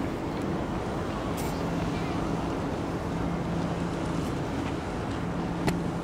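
A steady low mechanical hum, holding two low tones, over a rushing background noise, with a single sharp click near the end.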